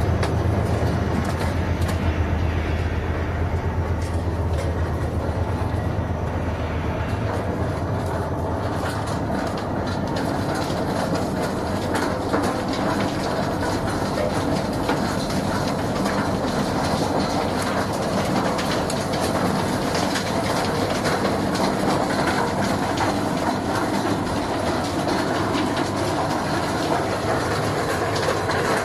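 Chicken-feet processing machinery running: stainless-steel rotating drum blanchers and a conveyor belt, with a steady clattering rattle. A low hum is strong for the first several seconds and then fades.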